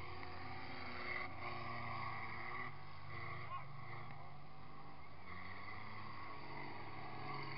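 Diesel engines of racing combine harvesters running hard as the machines circle a dirt track, a steady drone at an even level.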